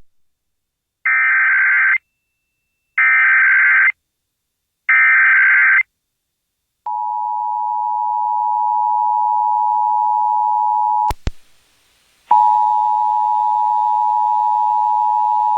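Emergency Alert System tones: three one-second bursts of warbling digital data (the SAME header), then the steady two-tone attention signal. About four seconds into the attention signal it cuts out with a click, goes silent for about a second, then resumes.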